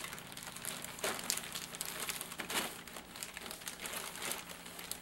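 Clear plastic bags crinkling in irregular crackles as bagged plastic model-kit parts are handled and moved.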